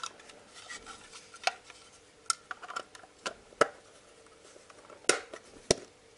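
Sharp clicks and knocks of hard plastic as the two halves of a UNI-T UT33C multimeter's case are fitted back together around its circuit board, about six separate clicks at uneven intervals.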